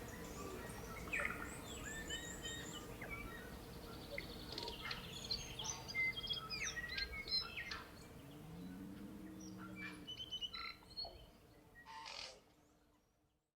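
Forest birdsong: several birds chirping, whistling and trilling over one another, with a lower drawn-out call about eight seconds in, fading out near the end.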